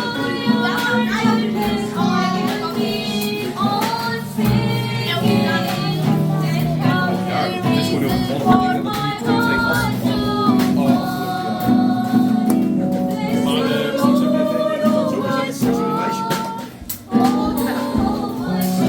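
Gospel worship music: several voices singing over instrumental backing, with held bass notes and a steady percussive beat.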